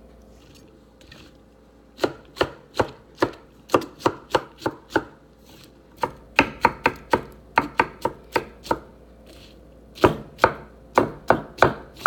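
Knife chopping diced vegetables on a wooden cutting board: sharp knocks of the blade on the board in quick runs of several strokes, with short pauses between runs, starting about two seconds in.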